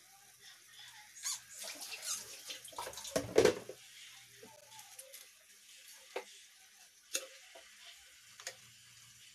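Cabbage and bean sprouts steaming in a wok with a steady soft hiss. A louder rustling thump comes about three seconds in, and a few sharp clicks of a metal ladle against the wok follow near the end as the vegetables are stirred.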